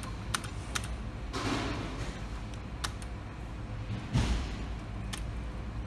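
A few sharp clicks a second or more apart and two short rustling swishes, one about a second and a half in and one about four seconds in, over a steady low room hum.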